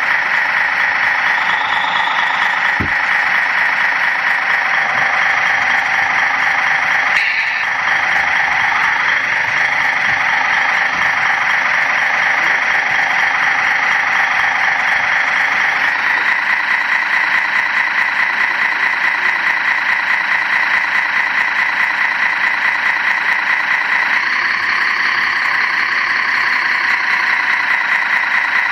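Radio-controlled model heavy-duty tractor truck running steadily, a continuous engine-like hum with a strong high whine. The sound shifts a little about 16 and 24 seconds in.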